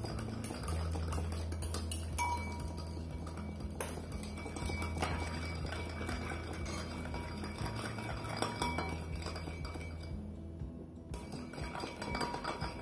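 Metal spoon stirring a soy-sauce-and-oil seasoning in a ceramic bowl, with repeated light clinks and scrapes against the bowl. A steady low hum runs underneath.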